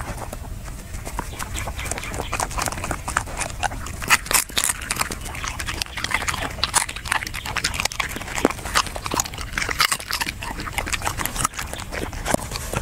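Dog chewing a fish: a run of irregular quick crunches and clicks, loudest about four seconds in.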